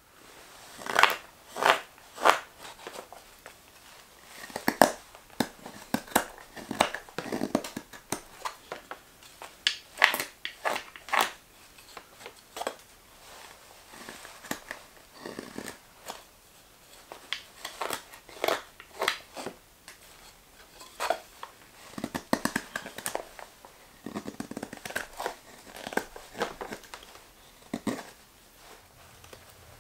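Carving knife slicing shavings from a green maple spoon handle: a run of crisp, irregular cuts, about one or two a second.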